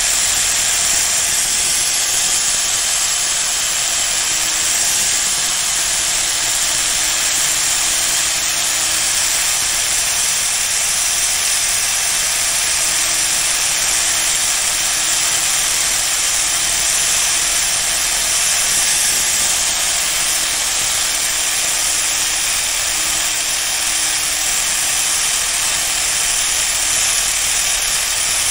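Power tool running steadily with an even high-pitched hiss as an abrasive works a steel tailor's shear blade, resurfacing it to take out pits and discoloration. A faint low hum comes and goes under it.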